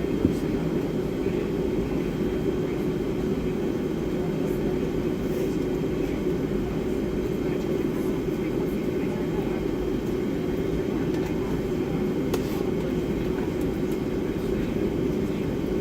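Steady cabin noise inside a Boeing 757-300 waiting to take off: the engines at idle and the cabin air system make an even low rumble.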